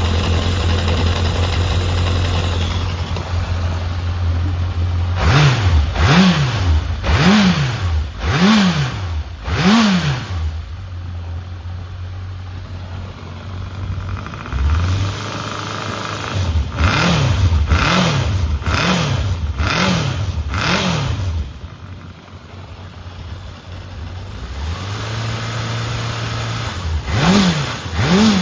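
Honda CB750F (RC04) air-cooled inline-four engine idling, then revved in two runs of five quick throttle blips about a second apart, each settling back to idle, with more blips near the end. It runs cleanly with no abnormal noise, which the seller takes for an engine in excellent condition.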